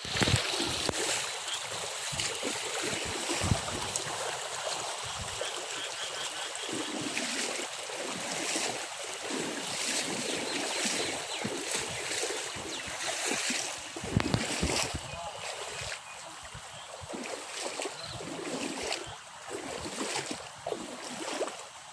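Heavy rain falling steadily, a dense hiss of many drops hitting, easing slightly in the second half.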